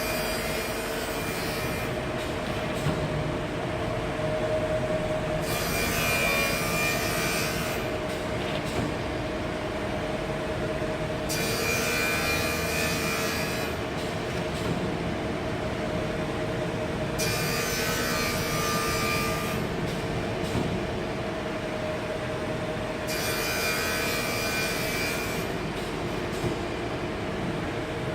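A PCB CNC V-scoring machine running with a steady hum. About every six seconds a rasping cutting noise lasts roughly two and a half seconds as the blades score V-grooves along the circuit-board panel.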